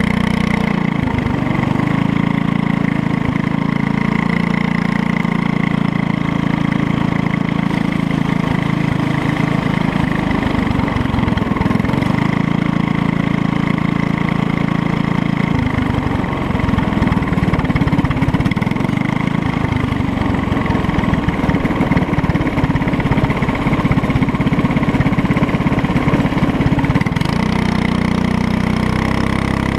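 Racing kart engine heard from on board the kart, running continuously as the kart drives down the pit lane and onto the track, its note shifting with the throttle about a second in, around halfway and again near the end.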